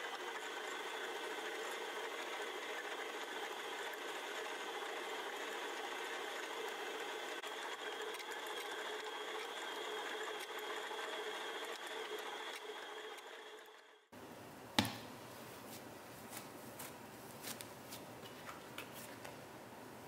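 Stand mixer motor running steadily with a dough hook, kneading a stiff bread dough, a steady whine that cuts off suddenly about two-thirds of the way in. A single sharp knock follows, then scattered light clicks.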